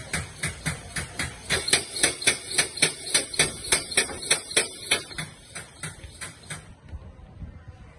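Husky air-operated diaphragm pump running on compressed air, its air valve shifting and exhausting with a sharp clack about three times a second, the strokes weakening and dying away near the end.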